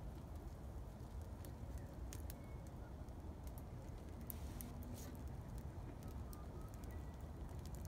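Wood fire burning in a metal fire bowl, crackling with scattered sharp pops, a cluster of them about halfway through, over a low steady rumble.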